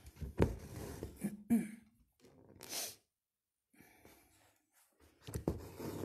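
A woman coughing about half a second in, then a sharp sniff near the middle.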